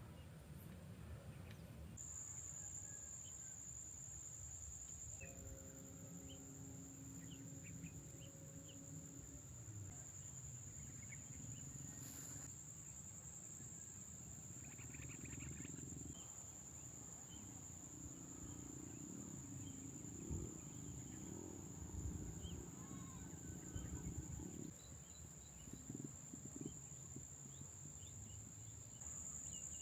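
Outdoor ambience: a steady, high-pitched insect trill over a low rumble, with faint scattered bird-like chirps.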